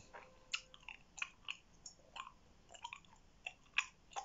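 Gum being chewed with the mouth, heard as irregular wet clicks and smacks, about two a second.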